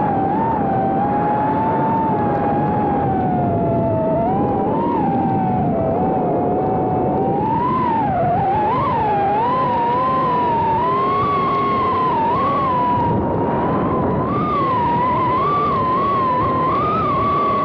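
Small FPV quadcopter's electric motors and propellers whining, the pitch wavering up and down constantly with the throttle and sitting somewhat higher in the second half.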